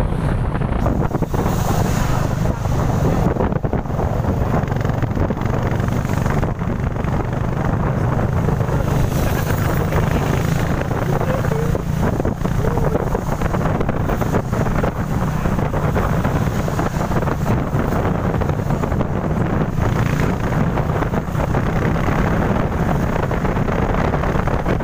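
Wind buffeting the microphone of a camera on a moving vehicle, with a steady low rumble underneath.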